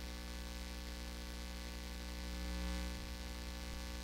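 Steady electrical mains hum with hiss from a plugged-in electric bass rig idling, with no notes played.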